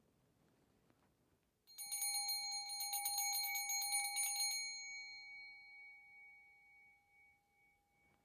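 Small altar hand bell shaken rapidly for about three seconds, then left to ring out and fade away.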